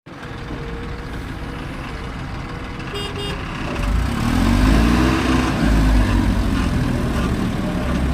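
Heavy diesel engine of a construction machine running, louder from about four seconds in, its pitch rising and then falling. A short double horn toot sounds about three seconds in.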